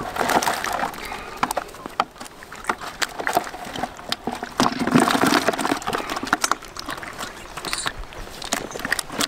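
Caught roach splashing and flapping in water as they are handled: a run of quick wet slaps and clicks, busiest about five seconds in.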